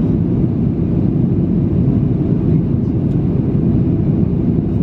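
Steady low cabin drone of a jet airliner on its approach, the engines and rushing airflow heard from inside the passenger cabin.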